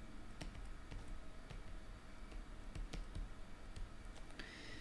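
Stylus clicking and tapping on a tablet screen while handwriting: faint, sharp clicks at irregular intervals over a low hum.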